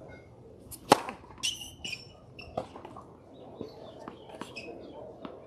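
Tennis serve: the racket strikes the ball with one sharp, loud hit about a second in, followed by a few fainter knocks and some brief high chirps.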